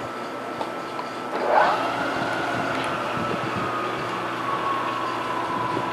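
Manual turret milling machine spindle running while a chamfer cutter is fed into a drilled hole in a 6061 aluminum block. About a second and a half in, as the cutter bites, a tone rises sharply in pitch, then holds and slowly drops.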